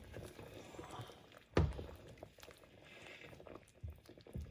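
Stirring curry in a pan on the stove: faint scraping and knocking, with one dull thump about a second and a half in and two lighter knocks near the end.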